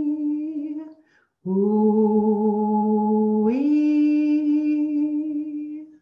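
A woman singing a slow, unaccompanied vocal toning chant ('ooh-wee'). A held high note fades out about a second in, and after a short breath a new long note starts low, steps up to a higher pitch about halfway through, and is held until near the end.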